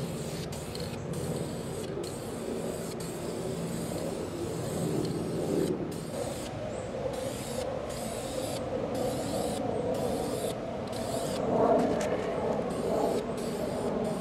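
Aerosol can of primer spraying in repeated bursts of hiss, with short breaks between sweeps, over a steady low rumble.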